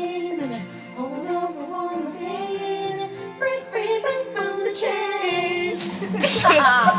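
Female voices singing a tune with music, growing louder with a wavering held note near the end.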